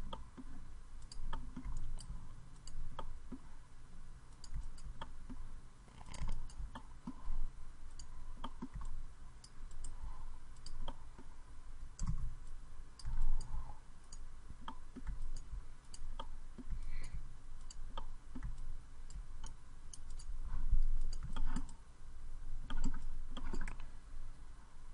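Irregular clicks of a computer mouse and keyboard, scattered unevenly, with a few low soft thumps among them.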